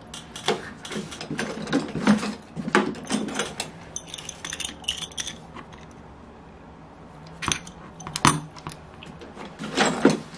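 Parts of a Saito FA-82 model glow engine and hand tools being handled on a workbench: small metal clicks and clinks, many in the first few seconds, then a lull, two sharp clicks, and a busy run of clinks near the end.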